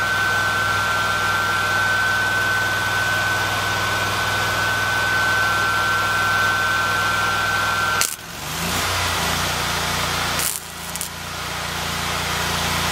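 Stick welding with an engine running steadily beneath it. A steady high whine holds until about eight seconds in, when a sharp crack cuts it off and the engine note dips and climbs back. A second brief crackle comes about two and a half seconds later, as the rod is struck again.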